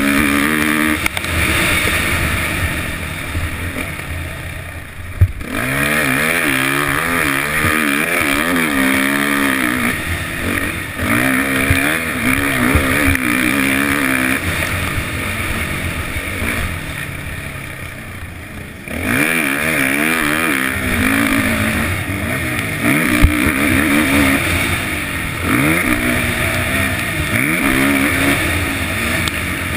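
Suzuki 450 motocross bike's four-stroke single-cylinder engine heard on board, its pitch rising and falling again and again as the rider opens the throttle, shifts and rolls off around the track. Twice the engine eases off for a few seconds and goes quieter. Two sharp knocks, about five seconds in and again past twenty seconds, are the loudest sounds.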